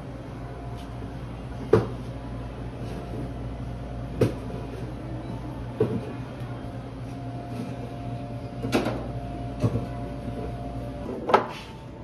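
Six scattered sharp knocks and clinks of dishes, lids and serving utensils at a breakfast buffet, over a steady low hum.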